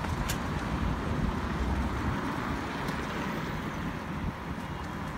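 Road traffic noise from a city street, with a car passing close by; a steady low rumble that swells slightly about a second in.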